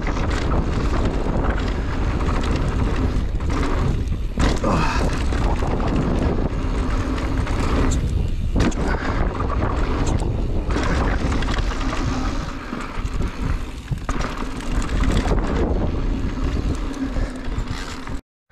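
Wind rushing over the microphone of a camera on a mountain bike ridden fast down a dirt trail, with the rattle of the bike over the ground and a couple of sharp knocks. The sound cuts off suddenly near the end.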